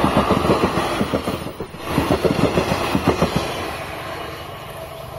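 Kamla Ganga Fast Passenger train running through the halt, its wheels clattering rhythmically over the rail joints. The clatter fades away near the end as the train moves off.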